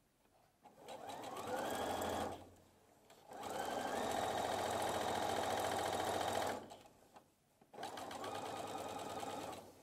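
Electric Brother household sewing machine stitching through fabric and binding tape in three runs, stopping briefly between them. Each run winds up in pitch as it starts; the middle run is the longest, about three seconds.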